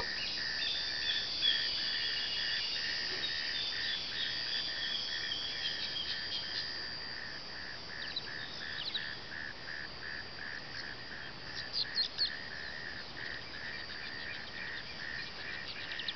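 Countryside animal chorus: a steady pulsing call repeating about two to three times a second, with higher wavering chirps over it and a cluster of sharp high chirps about twelve seconds in.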